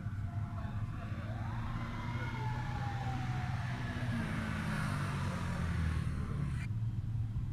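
Road traffic: a steady low rumble of vehicle engines, with a tone that sweeps up quickly and then slides slowly down over a couple of seconds.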